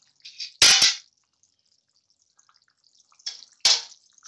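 Thick tomato-and-pea gravy bubbling in a pot on the stove, with a few short, loud, wet pops and splutters, two close together about a second in and another near the end as a ladle goes in to stir.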